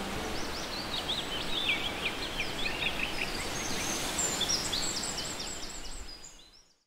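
Birds chirping over a steady background hiss, fading out near the end.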